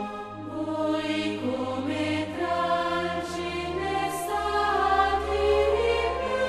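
Slow choral music: voices holding long notes that change pitch every second or so over a low sustained bass.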